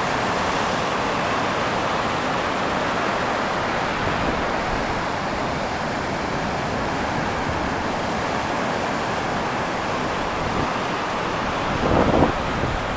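Rough Baltic Sea surf breaking in a storm: a steady, continuous wash of waves. A brief louder sound stands out near the end.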